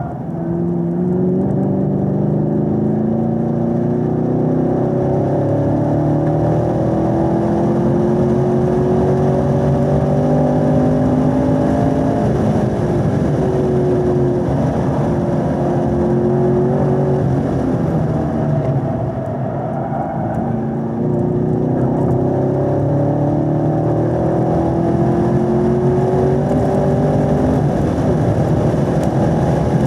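2018 Camaro SS 1LE's 6.2-litre V8 under hard acceleration on track, heard from inside the cabin: the note climbs steadily in pitch for about twelve seconds as the revs rise toward 6,000 rpm. It holds high, drops away for a few seconds past the middle, then climbs again to the end.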